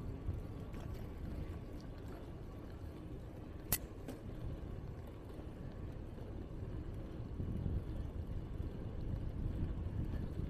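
Low, steady rumble of wind on the microphone and road noise from a moving bicycle, with one sharp click a little under four seconds in.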